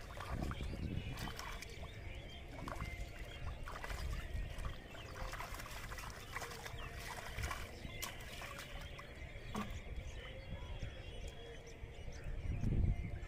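Water splashing and sloshing in shallow floodwater as bare feet wade and hands grab through the grass, with a louder surge of splashing near the end.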